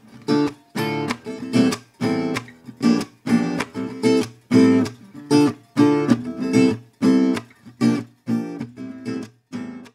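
Intro music of strummed acoustic guitar chords in a steady, punchy rhythm, stopping just before the end.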